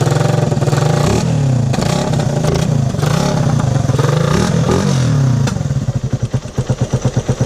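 Motorcycle engine revved up and down several times through a newly fitted big exhaust elbow, then dropping back to a pulsing idle about five and a half seconds in. The exhaust is still leaking slightly at the elbow joint.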